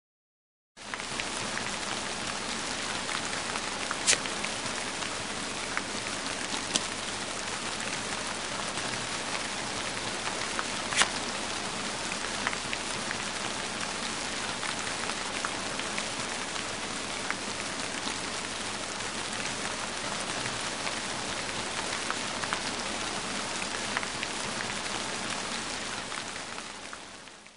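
Steady rain falling, dotted with a few sharper single drops, the loudest about four and about eleven seconds in. It starts about a second in and fades out at the end.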